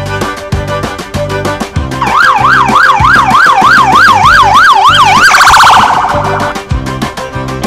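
Police car siren yelping, its pitch rising and falling about three times a second, then switching to a faster warble for about a second before it stops. It sounds over cheerful background music with a steady beat.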